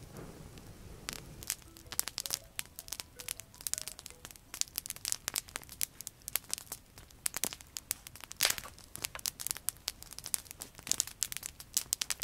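Campfire of dry twigs and branches burning, crackling with dense, irregular sharp snaps and pops that grow busier after about two seconds.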